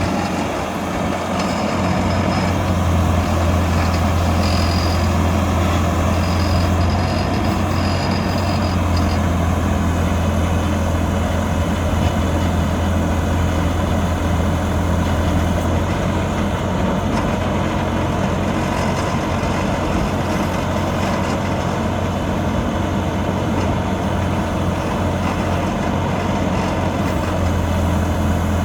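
PY80 crawler drill rig's 70 kW diesel engine running steadily, with a strong low hum.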